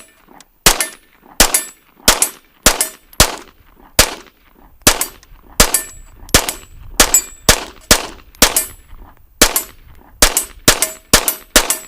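Unsuppressed Kriss Vector SDP 9mm pistol fired semi-automatically, about twenty loud shots spaced irregularly about half a second to a second apart, each with a short ringing tail.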